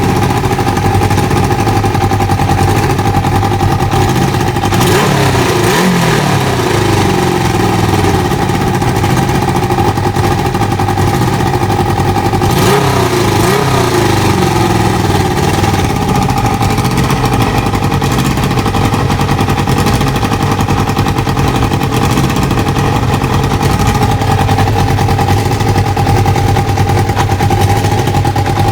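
Kawasaki ZL600 Eliminator's inline-four engine idling, its revs swelling and dropping back twice, about five seconds in and again around twelve seconds. This is the idle surge that is still there with the carburettor air/fuel screws at 1.5 turns out, and its cause is unknown to the owner.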